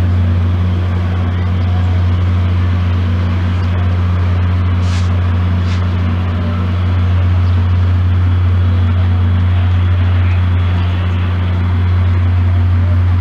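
Steady low drone of an idling diesel locomotive engine of a standing VIA Rail passenger train, with two short hisses about five seconds in.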